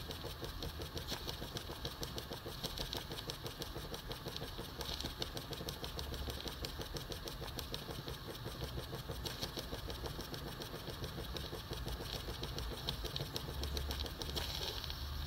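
Microcosm M82 flame-eater (vacuum) model engine running, its valve and beam linkage ticking in a fast, even rhythm.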